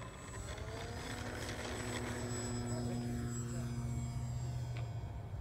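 Radio-controlled model airplane's motor and propeller throttling up for takeoff: the pitch rises over about the first second, then holds steady as the plane climbs away, thinning out near the end.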